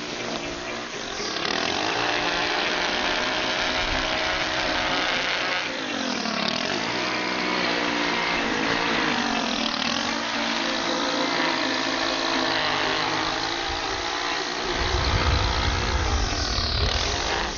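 String trimmer running while edging along a sidewalk, its motor pitch dipping and rising again a few times as the throttle is eased off and pulled. A low rumble joins in near the end.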